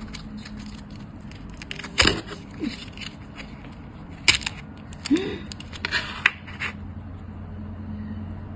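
Packaging being handled: a few sharp clicks and short crinkles at irregular moments, about two seconds in and again from about four to six and a half seconds in, over a steady low hum.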